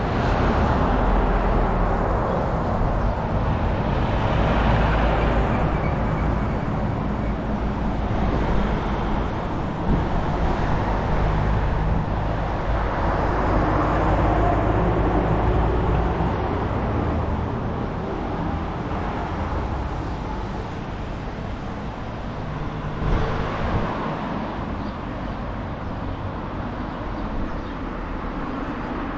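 Road traffic: cars going by one after another on a paved road, a continuous rumble of tyres and engines that swells as each vehicle passes.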